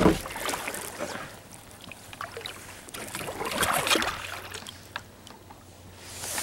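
Kayak paddle strokes in the water: a splashing swish fading at the start, another about three to four seconds in, with a few light drips and knocks between them.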